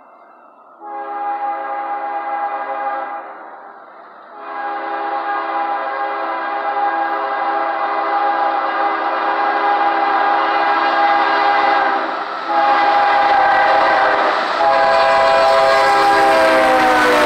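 Air horn of a CSX GE ES40DC diesel locomotive leading an intermodal freight train, sounding four blasts, the second one long, in the manner of a grade-crossing signal. It grows louder as the train approaches, with the low rumble of the locomotive and wheels on the rails building beneath it. Near the end the horn's pitch drops as the locomotive passes close by.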